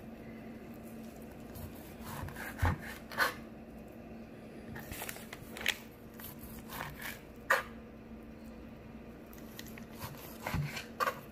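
Knife slicing through raw monkfish and knocking on a plastic cutting board, in several short spells of taps and scrapes. A steady low hum runs underneath.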